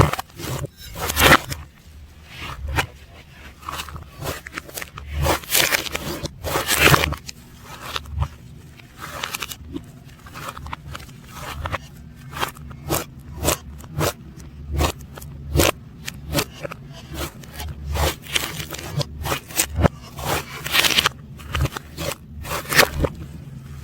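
Slime being squished and worked by hand, played in reverse: an irregular run of sticky clicks and crackling pops, with a few louder pops among them.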